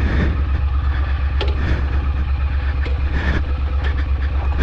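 Triumph Street Scrambler's parallel-twin engine running steadily at low revs, an even low pulsing, as the bike creeps over a rough rocky track. A few short sharp knocks come through, about a second and a half in and again near three seconds.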